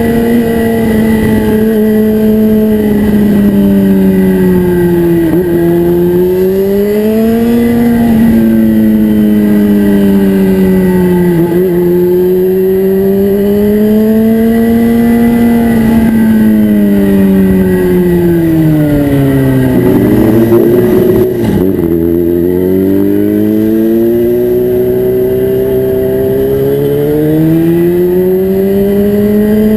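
Yamaha FZ6's inline-four engine through an Atalla aftermarket exhaust, its engine speed rising and falling smoothly again and again over several seconds at a time, dropping lowest about two-thirds of the way through before climbing again.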